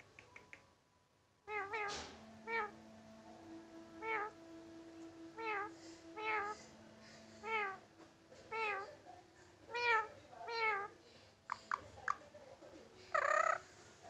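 Indian ringneck parakeet imitating a cat's meow: a run of short meow-like calls, about one or two a second, then a louder, longer meow near the end.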